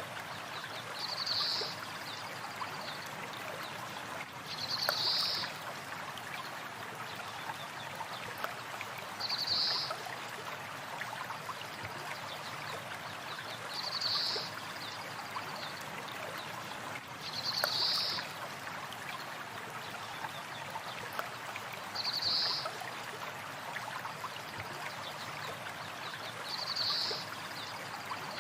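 A stream flowing steadily, with a short high bird call repeating about every four and a half seconds over it.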